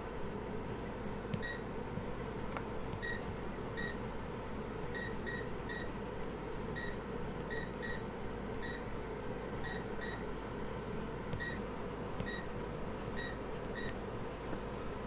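Bowling alley scoring computer beeping: short, identical high-pitched beeps at irregular intervals, some in quick pairs, over a steady background hum, with a few faint clicks.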